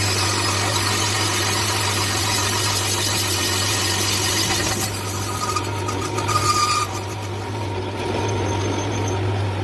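Metal lathe running with a motorcycle brake drum turning in it while a cutting tool scrapes metal from the inside of the drum, over a steady low motor hum. A short thin squeal comes from the cut about six seconds in.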